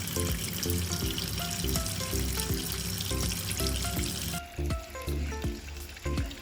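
Water trickling and splashing from a small tabletop fountain over background music. The water hiss cuts off suddenly about four seconds in, leaving only the music.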